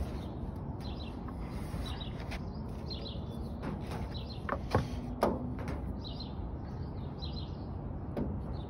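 Two sharp metal knocks about half a second apart near the middle, the second ringing briefly, and a lighter knock near the end: a hammer striking the copper roof sheet over a body dolly to work out a crease. Birds chirp repeatedly in the background.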